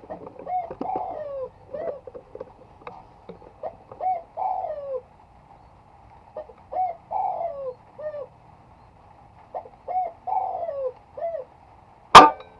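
A dove cooing in repeated phrases, four of them about three seconds apart. Near the end comes a single sharp shot from an air rifle firing a 15.4-grain Jaeger slug, louder than anything else.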